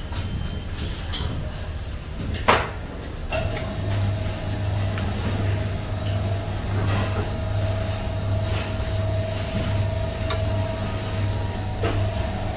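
Steady machine hum: a low drone with a faint steady whine that sets in about three seconds in and holds. About two and a half seconds in comes a single sharp clank, a metal palette knife laid down on the stainless steel table.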